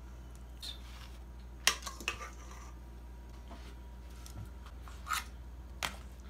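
Metal kitchen tongs clicking and tapping on a metal baking sheet about four times as chicken thighs are set down, over a low steady hum.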